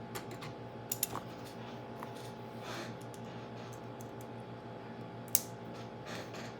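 Plastic Lego Technic pieces clicking and tapping as parts are handled and pushed together, with a pair of sharp clicks about a second in and the loudest click about five seconds in. A steady low hum runs underneath.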